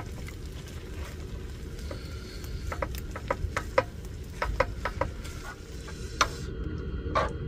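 A metal spoon stirring and scraping stir-fried octopus in a frying pan on a portable gas stove: scattered light clicks and scrapes of the spoon against the pan, over a steady low rumble.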